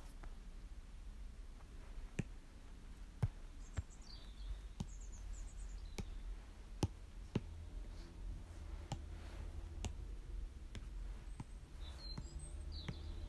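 A stylus tapping on an iPad's glass screen while drawing: scattered sharp clicks, irregular, about one or two a second.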